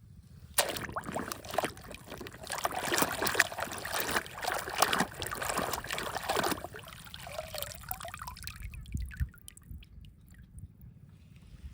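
Water splashing and trickling for about six seconds, then dying down to a few faint clicks and knocks.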